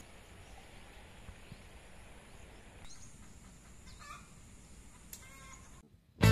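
Faint outdoor farm background with a few short, faint bird calls about halfway through. The sound cuts to silence just before the end.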